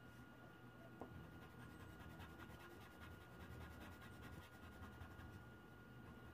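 Faint, rapid scratching of a coloured pencil shading on paper.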